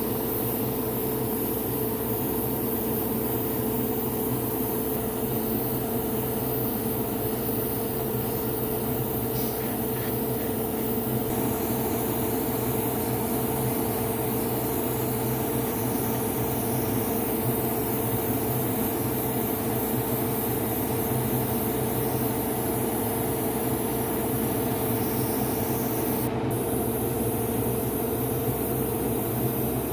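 Hobby spray booth's extractor fan running with a steady hum, with the hiss of an airbrush spraying paint over it.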